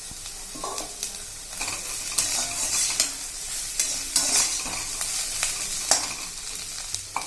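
Chopped green beans and onions frying in hot oil in a kadai, sizzling in waves as a spatula stirs and scrapes them, with a few sharp clicks of the spatula against the pan.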